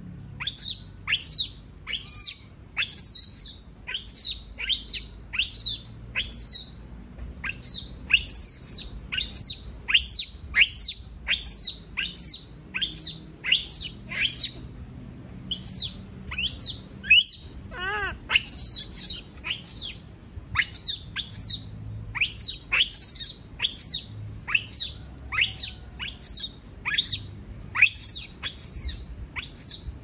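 Caged baby monkey screaming over and over: short shrill cries that fall in pitch, about two a second, with a brief pause near the middle. These are the distress calls of a young monkey left alone.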